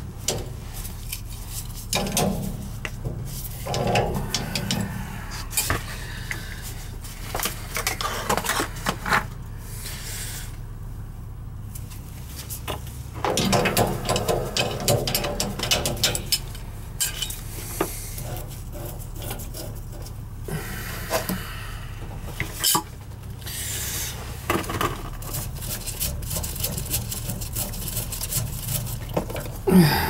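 Clicks, taps and rubbing of metal as the canister filter under a heating-oil tank is loosened by hand and its bowl taken off, over a steady low hum.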